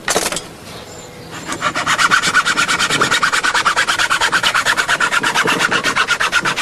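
A hacksaw sawing through a cardboard tube in quick, even back-and-forth strokes, starting about a second and a half in.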